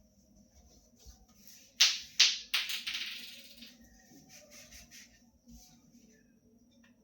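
Hard household objects clattering: three sharp knocks about two seconds in, the last trailing off over about a second, then a few light taps.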